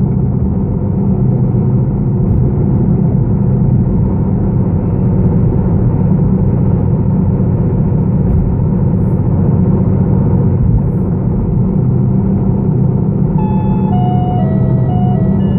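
Steady low rumble of road and engine noise inside a car cruising at highway speed. Near the end, a few held electronic music notes come in over it.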